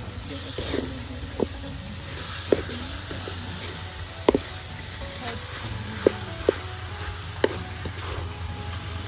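Chili paste sizzling in a steel wok while a spatula stirs and scrapes through it. The spatula makes about six sharp knocks against the pan. Shucked shellfish meat is tipped into the wok partway through.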